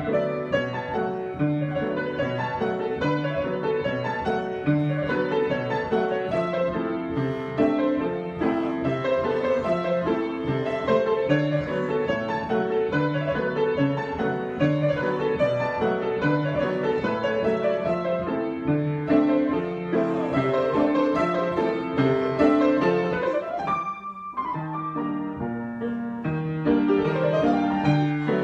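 Piano improvisation: a continuous, busy flow of notes. About 24 seconds in there is a brief dip, and the playing comes back with a rising run of notes.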